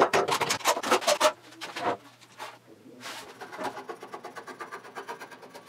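Rapid clicking and clacking of parallel bar clamps being slid along their bars and set on a glued-up panel, loud for about a second and a half, followed by a few softer knocks and then only faint sound.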